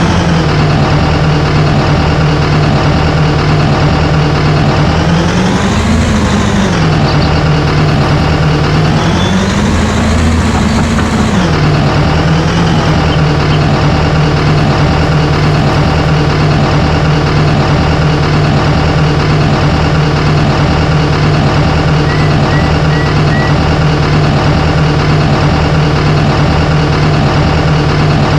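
Heavy diesel engine running steadily, rising in pitch twice as it speeds up, about six and ten seconds in, then settling back.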